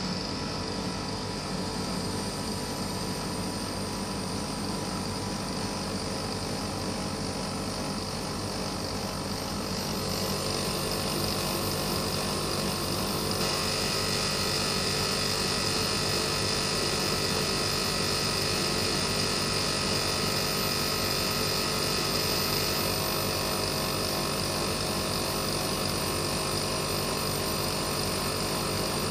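Split air conditioner running with a steady hum and high whine; it gets louder about ten seconds in and the high hiss strengthens a few seconds later.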